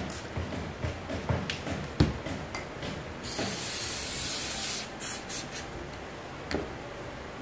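A spray hissing in one continuous burst of about a second and a half, aimed at the head. It is surrounded by a few scattered light knocks and handling sounds.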